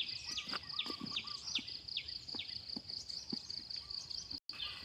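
Insects trilling steadily and high, with a quick falling chirp repeated about two to three times a second. All sound cuts out for an instant near the end.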